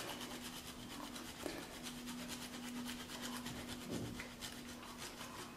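Cheese being grated on a fine hand grater: quick, repeated faint scraping strokes.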